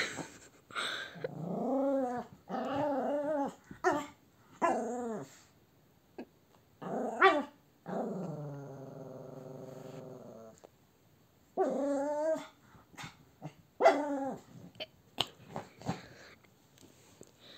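Small griffon dog growling in a run of short grumbles that rise and fall in pitch, broken by a few sharp barks, with one longer growl lasting about two and a half seconds around eight seconds in.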